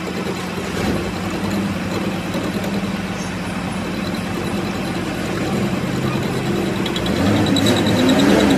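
Metal lathe running and turning down a steel diesel-pump camshaft, a steady machine hum under the noise of the tool cutting. Near the end a rapid, even, high ticking joins in and the sound grows a little louder.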